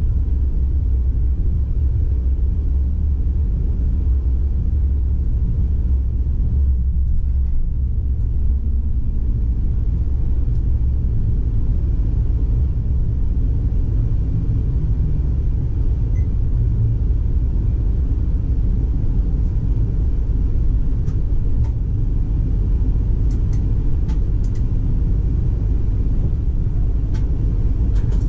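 PESA Twist II tram running along the line, heard from the driver's cab: a steady low rumble of wheels on rail and running gear, with a few faint clicks near the end.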